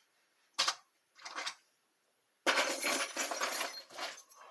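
Metal padlocks clinking and rattling as they are handled: two short clinks, then about a second and a half of dense metallic clattering starting about two and a half seconds in.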